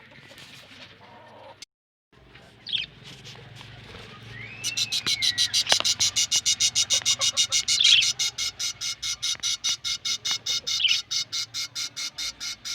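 Budgerigars calling: a rising-and-falling whistle, then from about five seconds in a fast, very even run of loud chirps, about six a second.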